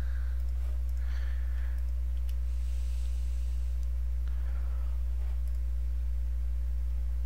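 Steady low electrical mains hum in the recording, unchanging throughout, with a few faint soft noises now and then.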